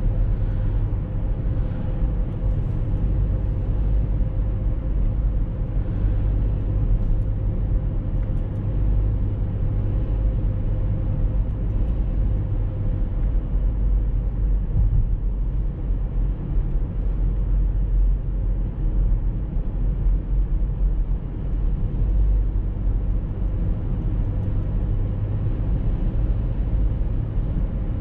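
Steady low rumble of a car driving on a paved road: tyre and engine noise, with a faint steady hum.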